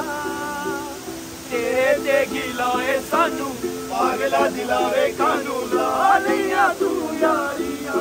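Ukulele strummed in a steady rhythm while two men sing loudly along with it; the singing drops briefly about a second in, then comes back strongly.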